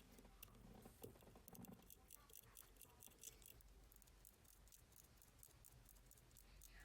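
Faint, fast ticking of a mechanical watch movement running, the balance beating in a quick run of sharp clicks.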